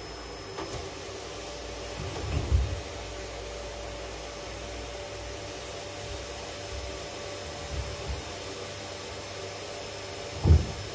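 Red canister vacuum cleaner running steadily, with a few dull thumps, the loudest near the end.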